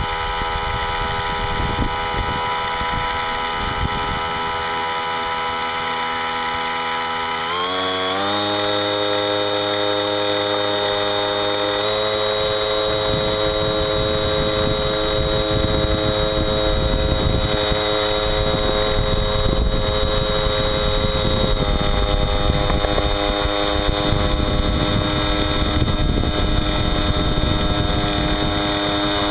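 Motor of a radio-controlled model boat running with a steady whine. It rises in pitch about a quarter of the way in and again a little later as the throttle is opened toward full speed, with water rushing along the hull.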